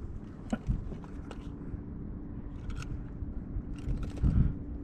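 Handling noise: a few light clicks and scrapes in the first second and a half, then a dull thump about four seconds in, over low rumble and a faint steady hum.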